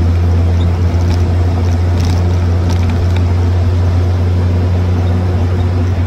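Replica WW2 jeep's Ford four-cylinder engine running steadily on the move: a loud, unbroken low drone. Wind noise on the microphone rides over it, from the open vehicle.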